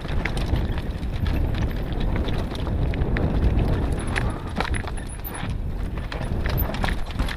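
Mountain bike rattling down a rocky trail: a steady low rumble from the tyres rolling over dirt and stones, broken by many sharp knocks and clatters as the wheels hit rocks.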